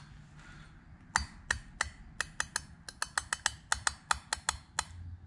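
Thin metal reed valves on an air-compressor pump's valve plate clicking as fingertips lift and release them against their seats, checking how tightly each one closes. It is a quick, irregular run of about twenty sharp ticks, starting about a second in and stopping near the end.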